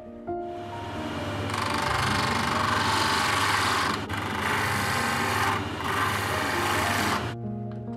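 Motor-driven sanding disc grinding a curly birch pipe bowl: a steady rasping hiss over the motor's low hum, starting a moment in, dipping briefly twice and stopping near the end.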